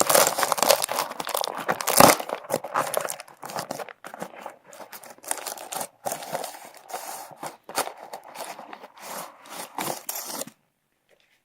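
Plastic packaging being torn open and crinkled by hand, with irregular rustling that is loudest in the first couple of seconds and then comes in fits. It stops about a second before the end.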